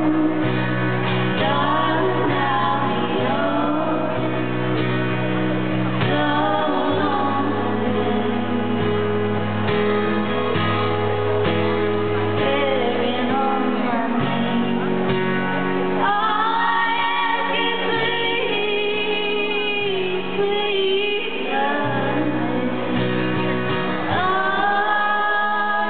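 Female vocal trio singing a country song live in harmony with acoustic guitar, amplified through a PA; long held harmony notes about sixteen seconds in and again near the end.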